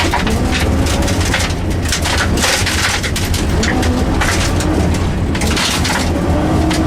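Rally car's engine running, heard from inside the cabin, with a steady low drone. Loose stones and gravel rattle and patter against the underside throughout.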